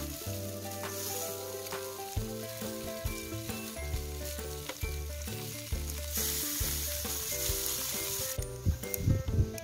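Meat and sausage sizzling over hot charcoal on a wire grill, the hiss swelling about six seconds in, over background music with a steady bass line.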